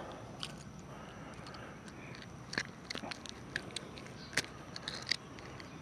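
Scattered small clicks and soft rustles of hands handling a freshly caught small largemouth bass and the fishing line close to the microphone, over a faint steady background with a thin high tone.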